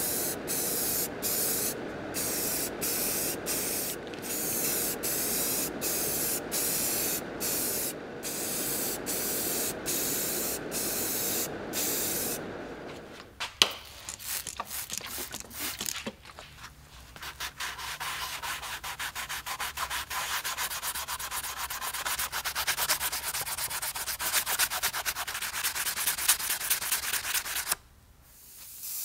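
Sanding by hand with back-and-forth strokes, about two a second, then a single click about halfway through, followed by faster, more even sanding that stops abruptly near the end.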